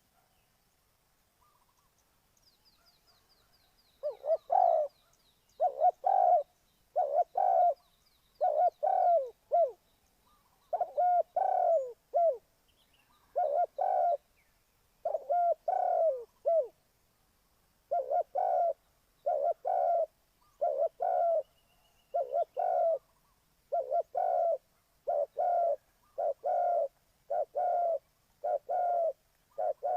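Spotted dove cooing, phrase after phrase of short coos about once a second, starting about four seconds in. A small bird twitters faintly and high-pitched in the first few seconds.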